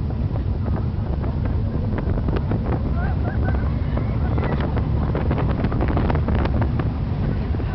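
Roller coaster ride heard from a seat in the moving car: wind buffeting the microphone over the low rumble of the train running on its track, with dense rattling clicks in the second half.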